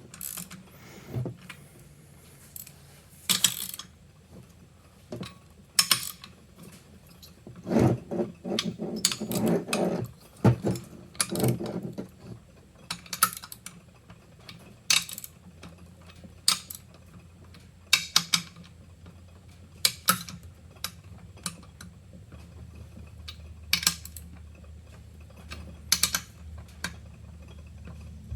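Scattered sharp metal clicks and knocks from a wrench and small parts as nuts and bolts are tightened on a bicycle engine kit's mount, with a busier run of knocking about eight to twelve seconds in.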